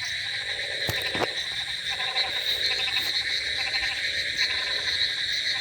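Chorus of many frogs croaking without a break, with fast pulsing calls at a high and a lower pitch overlapping. Two short sharp clicks sound about a second in.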